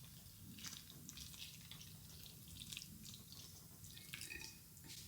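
Faint drips and small splashes of liquid, the warm red wine mixture being poured into the dry seitan base, with a few light clicks.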